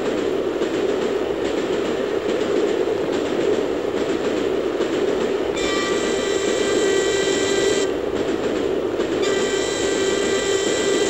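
LMS steam locomotive running on the line, a steady rushing noise from the footplate. Its whistle sounds twice: a blast of about two seconds about halfway through, then a longer one near the end.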